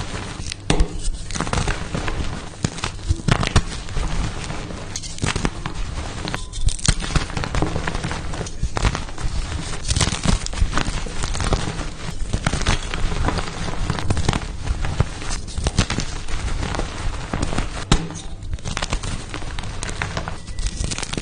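Pasted gym chalk blocks being crushed and crumbled by hand: a dense run of irregular crunches and crackles, some sharper snaps standing out.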